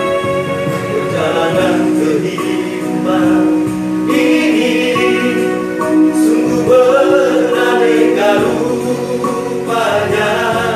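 Male vocal group singing together over a steady instrumental backing; the voices come in about a second in.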